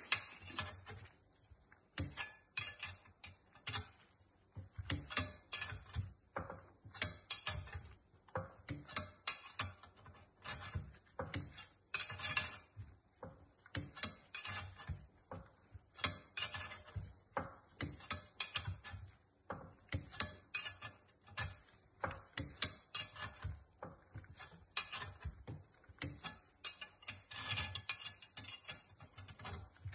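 Ratchet wrench clicking in repeated strokes, about one or two a second, as it turns the forcing screw of a gear puller that is pressing the shaft and bearing out of a Massey Ferguson 35 water pump housing.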